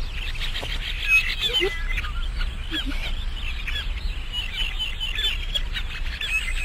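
Many birds calling at once, a dense run of short high chirps with a few lower honk-like calls, over a steady low rumble.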